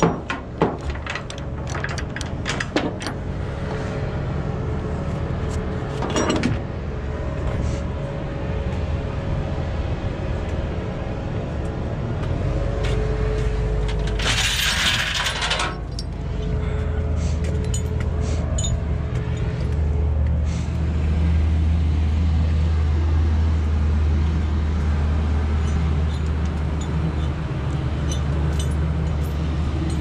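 Metal strap hooks clinking and knocking against a flatbed trailer's deck as tie-down straps are thrown and hooked, over the steady low hum of an idling diesel semi truck. About halfway through there is a loud burst of hiss lasting a second and a half, and the truck's hum grows louder after it.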